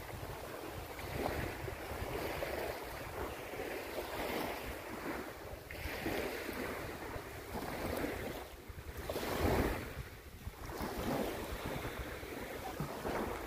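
Small sea waves washing onto a sandy beach, the surf swelling and fading every second or two, with wind buffeting the microphone.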